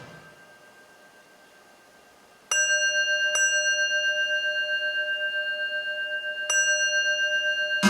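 Electronic music: the dense texture fades away, then about two and a half seconds in a bell-like tone is struck. It is struck again twice and rings on with several steady partials and a slight pulsing.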